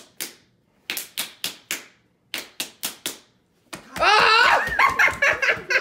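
Sharp hand claps and slaps in three quick runs of about five, each run under a second long, as two players play a hand-slapping game; excited voices and laughter break in about two-thirds of the way through.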